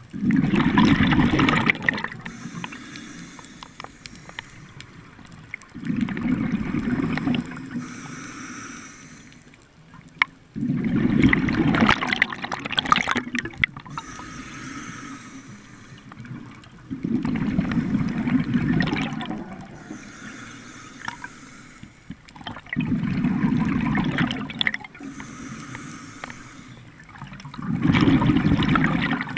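Scuba diver breathing through a regulator underwater. Each exhalation sends out a burst of bubbling, about every five to six seconds, six times, with quieter gaps between the breaths.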